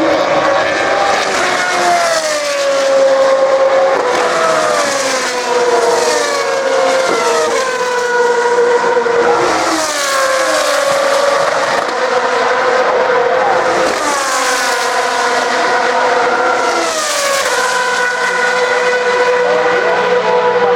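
Single-seater racing car engines at high revs, passing one after another, each engine note sliding down in pitch as the cars brake and shift down, every two to three seconds.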